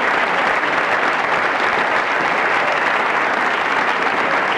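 Steady applause from spectators clapping, dense and even throughout.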